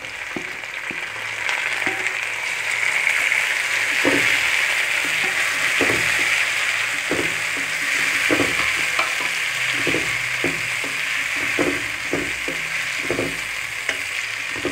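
Sliced tomatoes sizzling in hot oil with fried onions and ginger-garlic paste in a karahi, the sizzle swelling over the first few seconds. A plastic slotted spatula stirs and scrapes the pan about once a second.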